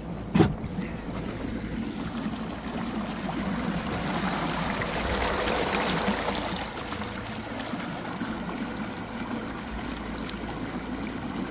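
Water rushing and splashing in the wake of a small boat driven at full throttle by an electric outboard, the motor itself barely heard. A single sharp knock comes about half a second in, and the water noise swells for a few seconds around the middle.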